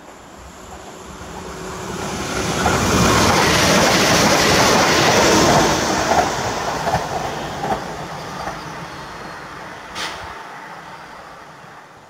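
Newag Impuls II 36WEd electric multiple unit running at speed during dynamic tests: the rumble of wheels on rail swells over the first few seconds, peaks, then fades steadily as the train runs away down the line. A single sharp click comes about ten seconds in.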